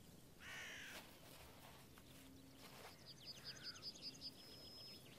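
Faint field ambience with birds: one bird call about half a second in, then a quick series of short falling notes, about six in a second, a little after three seconds in.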